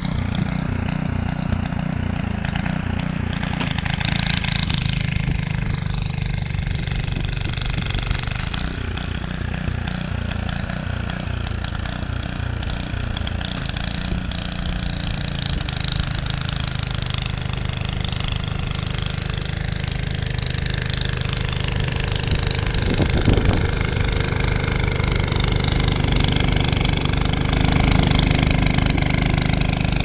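Gas-engine snowblower running steadily under load while clearing deep snow, with a low chugging engine note and a hiss of thrown snow; it grows a little louder near the end.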